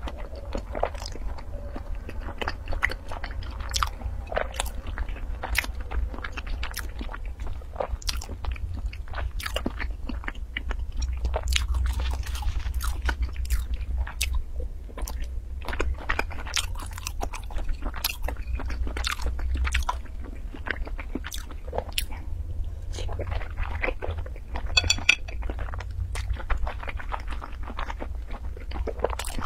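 Close-miked eating sounds: chewing and biting a soft, sauce-coated food, with many irregular wet mouth clicks.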